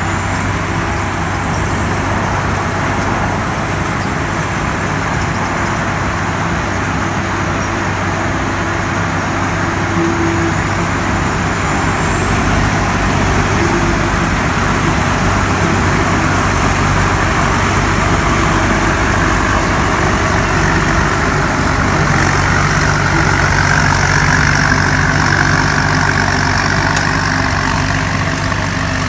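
Combine harvester running steadily at working speed: a loud engine hum under dense mechanical noise, with a thin high whine that steps up in pitch twice.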